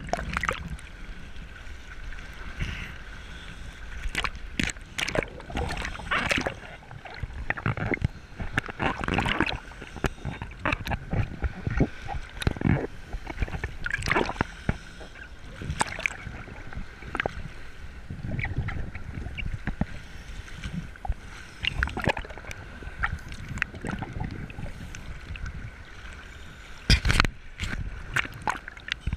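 Shallow surf sloshing and splashing around a camera at the water's surface, with frequent irregular sharp splashes as the water breaks over it. A faint steady high tone runs underneath.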